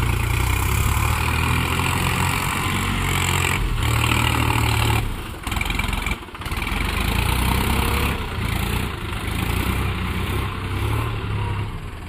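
New Holland tractor's diesel engine running steadily under load as the tractor drives through mud, with a deep low hum. The sound drops away briefly twice about halfway through.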